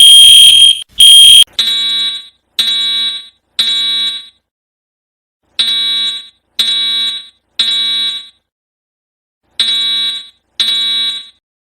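Fire alarm going off. It starts with three shrill, high-pitched beeps. Then, from about a second and a half in, a lower buzzing horn sounds in the three-pulse evacuation pattern: three blasts a second apart, a pause, and the three blasts again.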